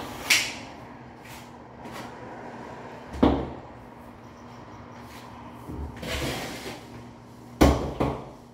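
Hand tile-setting work: a trowel knocking against a ceramic hexagon tile and scraping thinset mortar. There are sharp knocks about a third of a second in and just after three seconds, a longer scrape around six seconds, and two knocks close together near the end.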